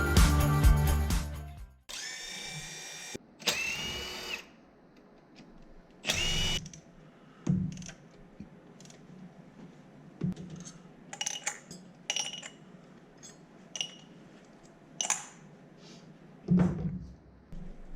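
Background music ends about a second and a half in; then a handheld power tool whirs in three short bursts, one rising in pitch, followed by scattered clicks and knocks of tools being handled.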